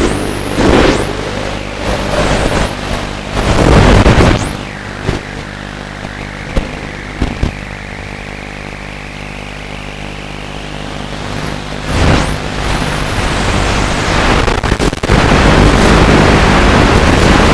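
Electric motor whine of a radio-controlled FPV model aircraft, high-pitched, swooping up and down with the throttle in quick surges, then held steady for several seconds. Near the end loud rushing noise takes over.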